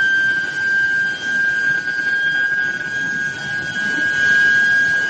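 Billet reheating induction furnace running, giving a steady, high-pitched tone with fainter overtones over a continuous rumbling background noise.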